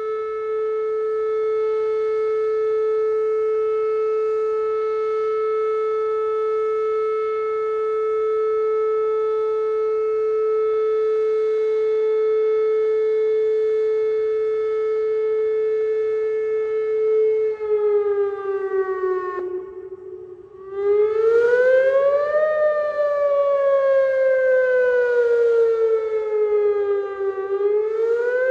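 Whelen WPS-2810 electronic outdoor warning siren sounding its steady alert tone, which drops in pitch and fades about 18 seconds in. It then starts its wail signal, a slow rise and longer fall in pitch that begins rising again near the end.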